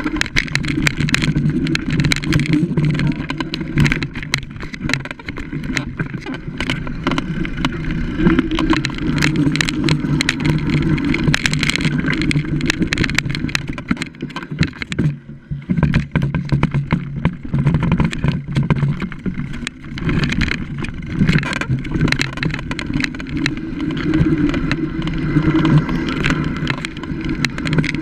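Mountain bike descending a rough woodland dirt trail: a constant clatter and rattle of the bike over roots and bumps, with tyre noise and wind rumble on the microphone. It goes quieter for a moment about halfway through.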